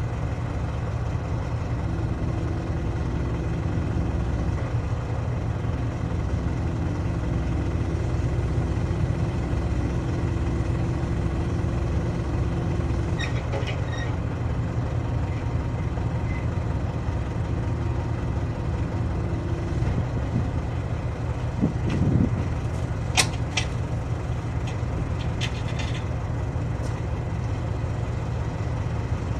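A large diesel engine running steadily at idle, with a humming tone over it for much of the time, and a few light metallic clinks from the tyre work, about halfway through and again near the end.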